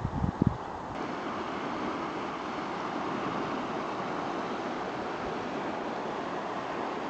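Steady rush of river water, an even noise with no pitch, getting a little louder about a second in. A few low bumps come in the first half-second.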